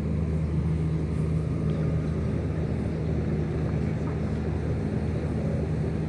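Generator engine running steadily, giving a low, even drone.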